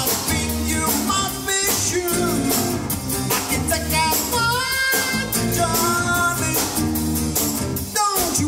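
Rock song with a lead vocal over a band keeping a steady beat.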